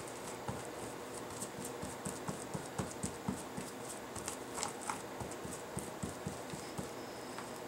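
Flat paintbrush dabbing and stroking Mod Podge over paper on a stretched canvas, pressing down a piece that will not stay flat: a quick, irregular run of soft taps and light brushing, busiest in the middle.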